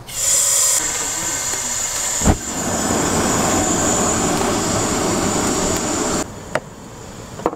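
Propane ring burner under a pot: gas hissing, a low thump about two seconds in, then the burner flame running steadily with a jet-like rushing noise until it cuts off abruptly near the end.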